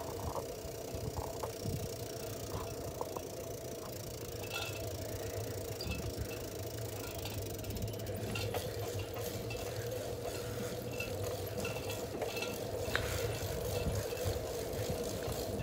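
Bicycle being ridden on asphalt: a steady hum and rumble from the rolling tyres and drivetrain, with scattered light rattling clicks that grow more frequent about halfway through.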